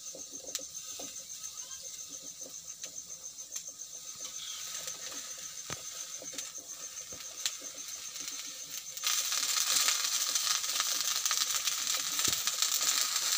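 Metal spoon clicking and scraping on a stainless steel kadai full of cut okra as oil is spooned in and stirred. About nine seconds in, a steady sizzling hiss starts as the okra begins to fry in the hot oil.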